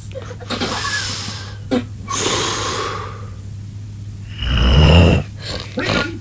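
Snoring in sleep: breathy inhales and exhales, then one loud, low, rattling snore about four and a half seconds in.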